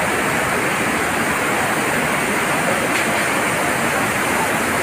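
Tall waterfall pouring down a cliff face: a steady, even rush of falling water.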